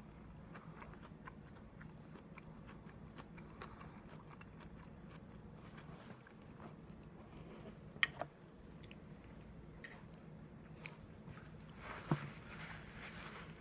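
A person chewing food close to the microphone: soft, irregular mouth clicks and crunches over a low steady hum, with two sharper clicks, about eight and twelve seconds in.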